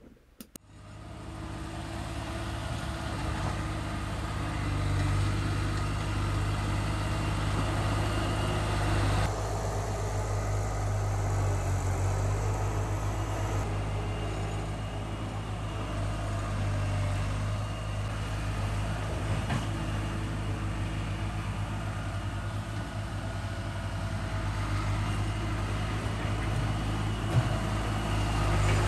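Skid steer loader's engine running steadily as the machine drives and carries dirt in its bucket, a low even drone that fades in over the first second or two.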